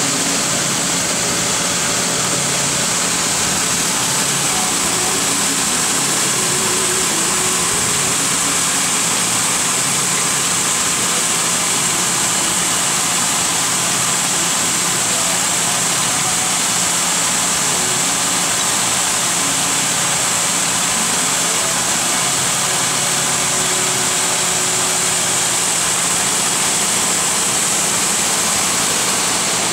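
Abplanalp TFG grinder running steadily while grinding aircraft brake linings fed through on its conveyor belt: a loud, even hiss over a low steady hum.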